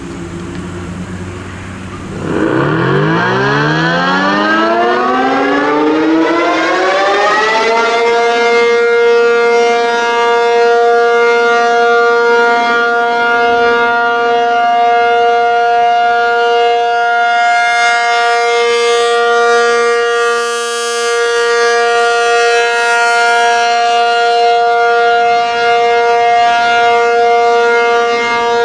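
ACA P-50 tornado siren winding up: about two seconds in, its pitch climbs steadily for some six seconds, then it holds one loud, steady tone, the start of its alert signal.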